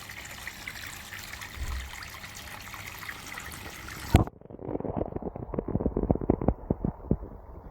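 Borehole water running into a koi fry tank, a steady splashing hiss, which cuts off abruptly with a click about four seconds in. A duller run of short knocks and taps follows.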